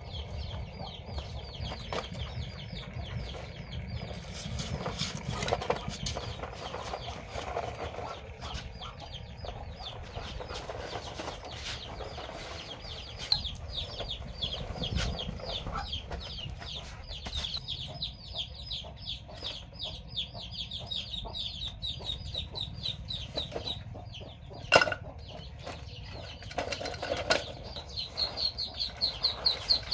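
Birds chirping in long runs of short, high, falling notes, several a second, over a low rumble. A sharp knock sounds about 25 s in, with a smaller one around 13 s.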